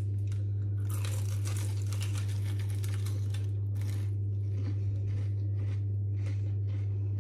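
Crisp fried-pastry pies in cardboard sleeves being bitten into and chewed, with crunching and the paper sleeves crinkling, thickest in the first few seconds and thinning out after. A steady low hum runs underneath.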